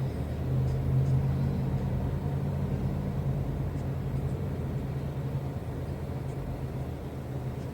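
Car engine idling with the heater and defroster fan running, heard from inside the parked car's cabin as a steady low hum.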